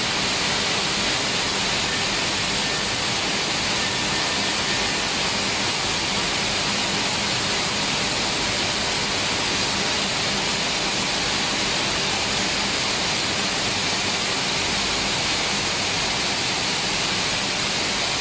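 Maize milling plant machinery running: a steady, loud rushing noise with a faint low hum underneath.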